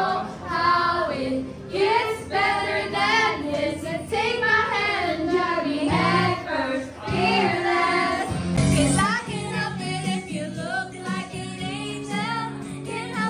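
Female voices singing a pop song over backing music.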